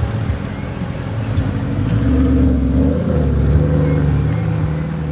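A car engine running steadily as a car goes by. The sound swells about two seconds in, then slowly eases off.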